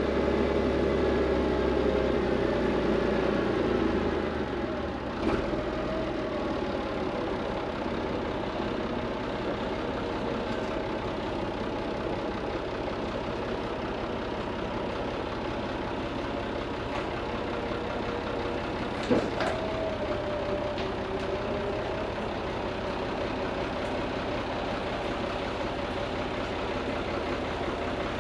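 Truck engine running, louder for the first four seconds and then settling to a steady idle. A sharp knock sounds about two-thirds of the way through.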